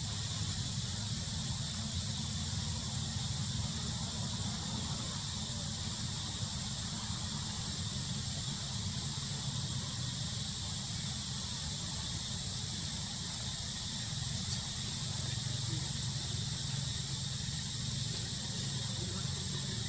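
Steady outdoor ambience: a constant high insect drone with a thin whine on top, over a low steady rumble.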